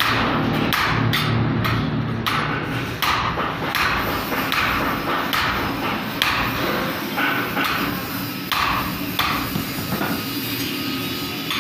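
Hammer striking a 1/2 inch steel rod over and over, roughly two blows a second, as the rod is bent by hand without a bender.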